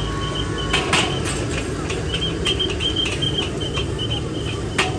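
Busy street ambience: a steady traffic hum, with a few sharp clacks and a repeating high chirp.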